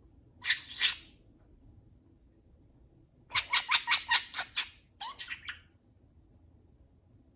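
Pet budgerigar squawking: two sharp calls near the start, then a quick run of about eight loud squawks a few seconds in, trailing off into softer chatter.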